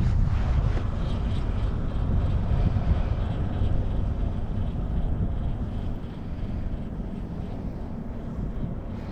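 Wind buffeting the microphone: a low, steady rumble that eases off slightly toward the end.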